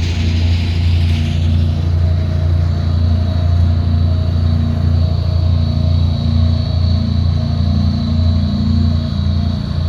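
Diesel engine of heavy road-building machinery (a paver or road roller) running steadily under load, a deep even hum with a thin high whine above it.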